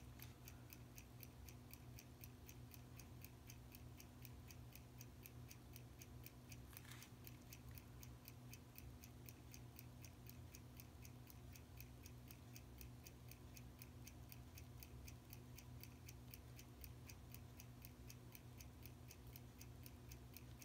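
Steady, fast, faint ticking of a running timepiece, about five ticks a second, over a low steady hum; one slightly louder click about seven seconds in.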